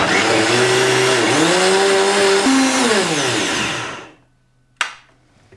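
High-speed countertop blender running, pureeing basil leaves with water into a fine green liquid. Its motor pitch wavers, then falls as it spins down after about three seconds. A single sharp click comes near the end.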